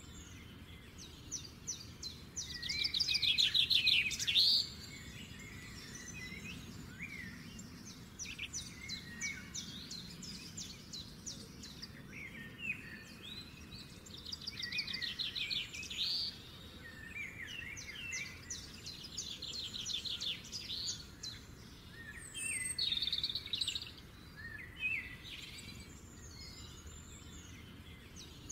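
Birds chirping, with fast trills that come again every few seconds, the loudest about three to four seconds in, over a steady low background noise.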